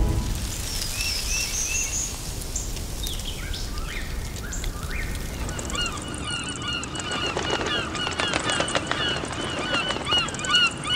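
A flock of gulls calling: many short, overlapping calls that thicken into a steady chatter about halfway through. Before that there are only a few scattered high chirps and some falling calls.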